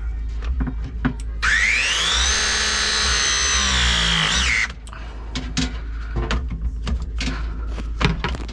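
Milwaukee battery press tool crimping a copper press fitting. About a second and a half in, its motor starts with a rising whine, runs steadily for about three seconds as the jaws close, then cuts off abruptly. Light clicks and knocks of the tool being handled come before and after.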